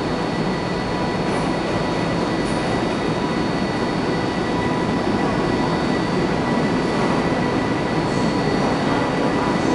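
A train running steadily on the track: an even rolling rumble with faint steady whine tones above it and no change in level.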